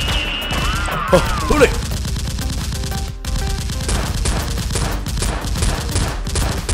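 Rapid, continuous automatic gunfire sound effects: a dense run of shots with no real pause, dubbed over toy blasters being fired.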